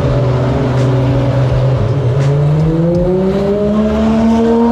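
Ferrari race car engine running at an even pitch, then climbing steadily in pitch over the last two seconds as it revs up and accelerates.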